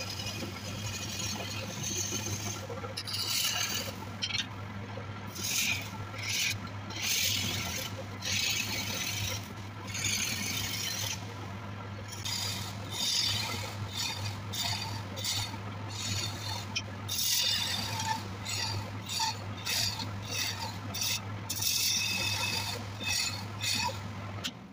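Wooden spoon blank spinning on a motor-driven woodturning lathe, a hand tool scraping against the turning wood in repeated short strokes over the steady hum of the electric motor.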